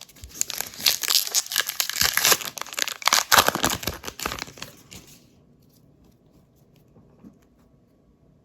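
Plastic wrapper of a baseball card pack crinkling and tearing as it is opened and crumpled, for about five seconds, then only a few faint rustles.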